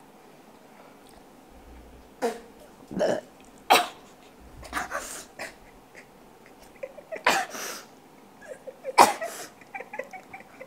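A person's short, stifled vocal bursts: breathy snorts and gasps held back behind a hand. There are about six of them, a second or so apart, with a longer one about five seconds in.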